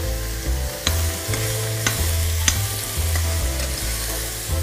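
Gamba shells, tomato and vegetables sizzling as they are sautéed in a stainless steel saucepan and stirred with a metal spoon that clinks against the pot four or five times.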